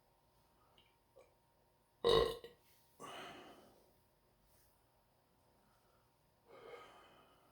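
A person belching loudly, once and briefly, about two seconds in, from a stomach full of carbonated soda. A breathy sound fades out a second later, and a softer sound follows near the end.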